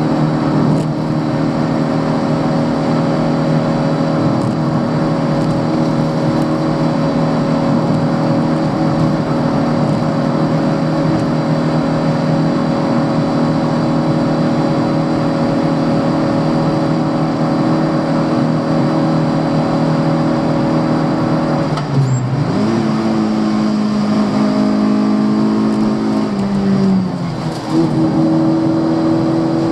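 Fiat Cinquecento 900's four-cylinder engine, heard from inside the car, held at high, steady revs for about twenty seconds. The revs then drop suddenly and climb again, with a second brief dip and rise near the end.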